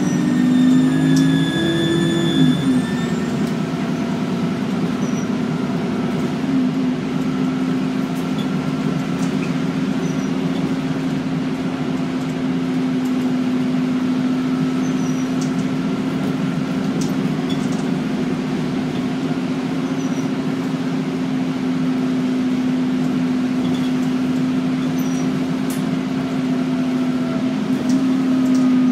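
Alexander Dennis Enviro400 bus engine running at a steady drone, with a turbocharger whistle above it. The whistle is clearest in the first few seconds.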